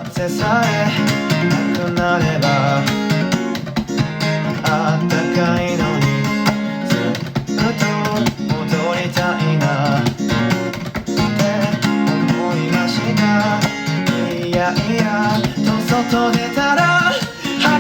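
Acoustic guitar strummed steadily, with a voice singing over it.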